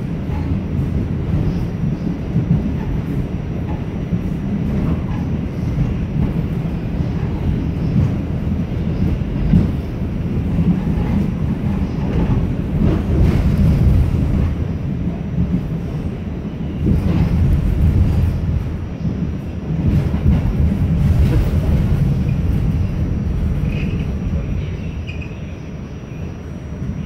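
R46 subway car running along the track, heard from inside: a steady low rumble of wheels and motors with scattered knocks as the wheels cross rail joints. Faint high wheel squeals come in near the end.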